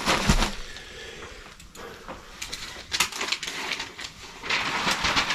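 Sheets of thin white packing paper being crumpled and stuffed into a cardboard shipping box: crinkling and rustling in short bursts, denser near the end.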